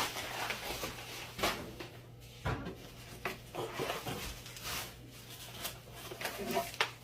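Packaging being handled while a box is unpacked: scattered rustles, rubs and light knocks as padding is pulled out.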